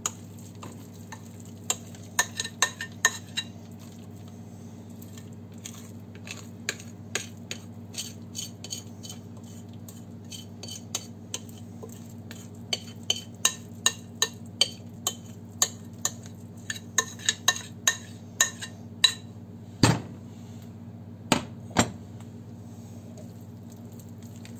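A metal spoon scraping and clinking against a glass mixing bowl and a metal cake pan as thick batter is spooned out, a rapid, uneven run of short clinks with a couple of louder knocks near the end. A steady low hum runs underneath.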